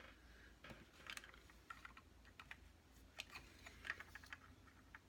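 Faint, irregular clicks and taps of small plastic miniature pieces being handled and fitted together.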